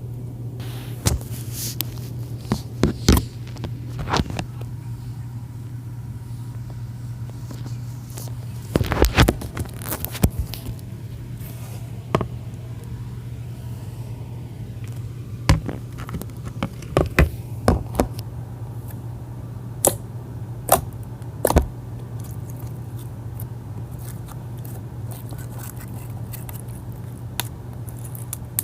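Pink slime being squeezed and handled, giving scattered sharp clicks and pops, some in quick clusters, over a steady low hum.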